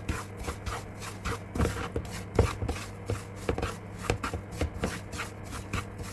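A spatula stirring and scraping semolina as it fries in ghee in a pan, with quick, uneven scrapes and knocks against the pan, two or three a second.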